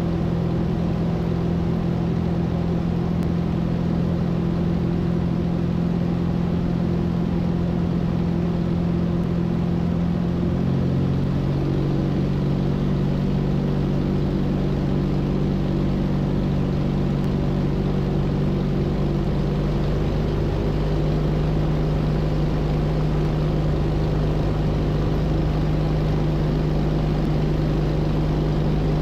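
Hummel Ultracruiser's engine droning steadily in flight, heard from the cockpit. About eleven seconds in, the engine note drops a little and stays lower as the throttle is eased back.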